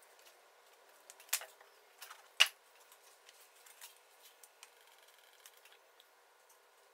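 Scattered light clicks and taps of small handwork, veneer pieces and a pointed pick handled on a work surface, with two sharper taps, the louder about two and a half seconds in.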